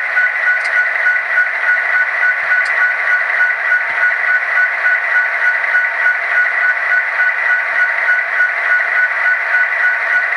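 EMD 16-cylinder 710 diesel prime-mover sound from an ESU LokSound Micro v4 sound decoder, played through the tiny speaker of an N scale Kato SD70ACE model locomotive standing still. The engine sound is a steady, evenly pulsing run with a constant high tone on top, thin and without bass.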